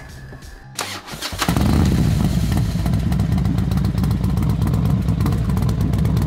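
Motorcycle engine starting up about a second in, then running loudly and steadily with a fast, even pulse.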